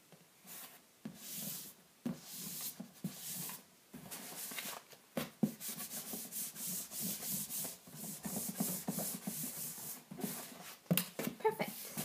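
Hands rubbing and smoothing a freshly glued paper sheet down onto thin cardboard: a long run of irregular brushing strokes of palm on paper, starting about half a second in, with a few sharper taps about 11 seconds in.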